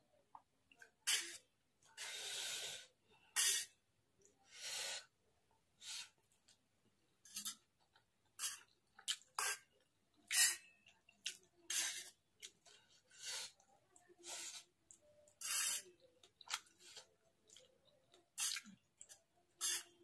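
Close-miked eating of chow mein noodles: wet chewing and slurping in many short, separate bursts, with a longer slurp about two seconds in. Light clinks of a fork against a steel plate come in between.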